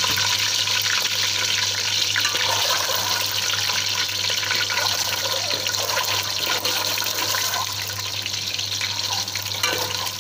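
Boiled eggs frying in hot mustard oil: a steady sizzle full of small crackling pops, easing off a little toward the end.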